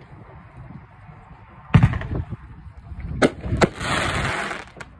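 500 gram consumer firework cake shots bursting: a loud boom a little under two seconds in, two sharp reports about three seconds in, then about a second of crackling hiss as the gold glitter ring bursts burn out.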